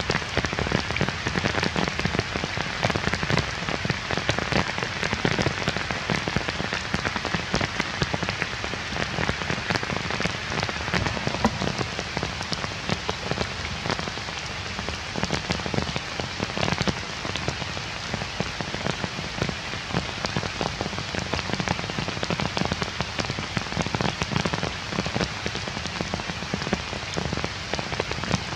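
Heavy rain falling steadily, a dense hiss of countless drop impacts that does not let up.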